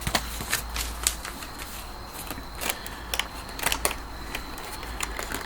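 Scattered light clicks and crackles of packaging being handled: a paper pamphlet and a plastic blister pack from a model train box.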